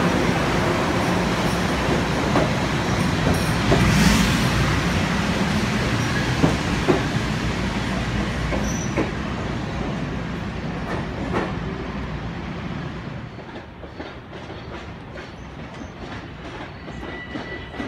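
Long Island Rail Road Bombardier M7 electric train pulling out along the platform. Its wheels clack sharply over rail joints as the cars roll by, and the rumble fades once the last car has passed.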